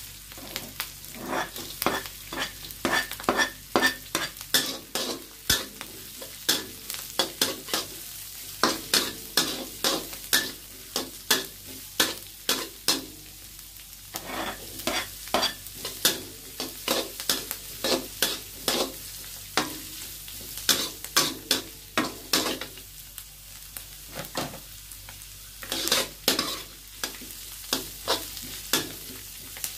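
Chopped vegetables sizzling in oil in a wok while a spatula stirs and scrapes them, with repeated sharp clacks of the spatula against the pan, a few a second, broken by short lulls.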